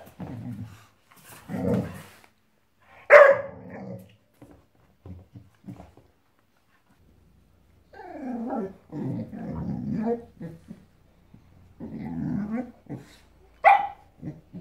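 Boxador puppy (Boxer–Labrador mix) growling and barking at a toy in irregular bursts, with a loud sharp bark about three seconds in and another near the end, and longer low growls in between.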